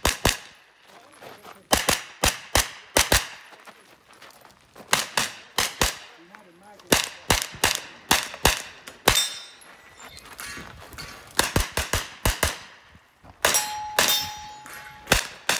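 SIG MPX 9mm pistol-caliber carbine firing on a shooting stage: about a dozen quick strings of two or three sharp shots, each with a short ringing echo, separated by pauses of roughly half a second to two seconds.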